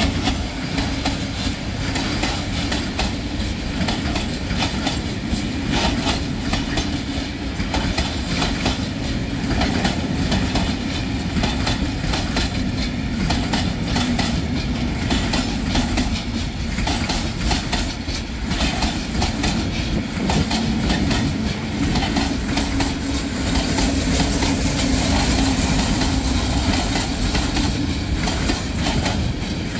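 Freight train of open-top gondola wagons rolling past close by: a steady rumble of steel wheels on rail, with repeated clicks as the wheels pass over rail joints.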